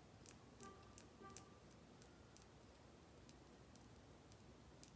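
Near silence: room tone with faint, scattered ticks and clicks, most of them in the first couple of seconds.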